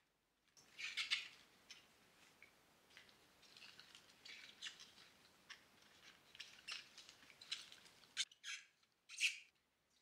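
Tulip and daffodil leaves and stems rustling and rubbing as a hand handles and arranges them in a vase: a run of faint crisp crackles and ticks, with two louder rustles near the end.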